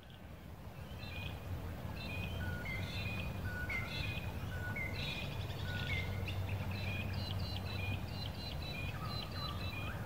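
Field recording of wild birds calling and singing, with short repeated chirps and whistled notes overlapping from several birds, over a steady low rumble. It fades in over the first couple of seconds.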